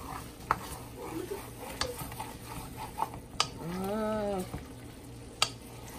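Wooden spoon stirring browned chicken pieces in a large metal pot, scraping and knocking sharply against the pot several times. A short hummed voice sound rises and falls about four seconds in.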